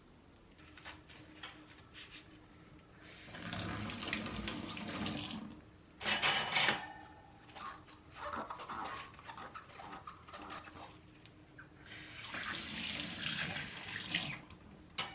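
Kitchen sink tap running in two short spells, with clinks and a louder clatter of dishes between them.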